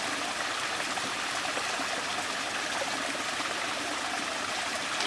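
A small stream of water trickling steadily over rocks.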